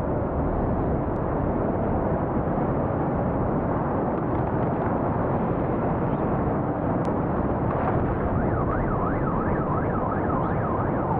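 Steady, dense rushing noise throughout, with an emergency siren wailing rapidly up and down over the last three seconds.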